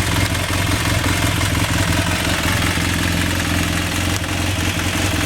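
BMW F800 parallel-twin engine idling steadily, with a fast light ticking running through the idle.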